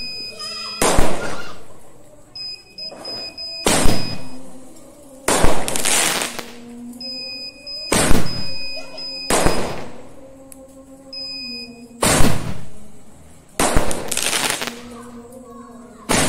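Fireworks firing from tubes in quick succession: about ten loud bangs one to two seconds apart, each trailing off in a short hiss. A high steady electronic beep sounds in some of the gaps.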